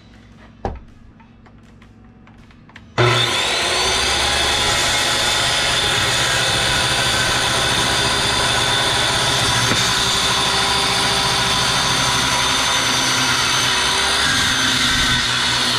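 Handheld circular saw starts about three seconds in and runs steadily with a high whine, cutting lengthwise along the edge of a 2x4 to trim it straight. A few faint clicks come before the saw starts.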